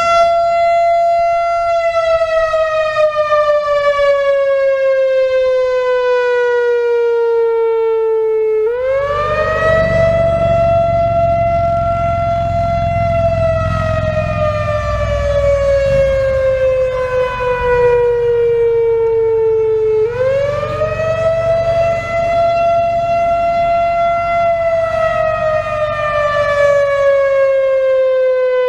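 Whelen WPS-4000-4 electronic outdoor warning siren sounding a wail: one rich tone rises quickly, holds, then slides slowly down, cycling about every 11 seconds, twice over and into a third. It is an original late-1980s unit on its analog ESC-864 controller, and its owner finds it not very loud, likely from age and a couple of blown drivers.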